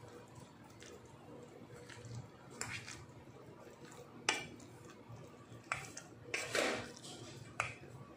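Metal spoon knocking and scraping against a stainless steel bowl while mixing thick lentil fritter batter with flour, in a few irregular clinks. The sharpest clink comes about four seconds in, and a longer scrape follows a couple of seconds later.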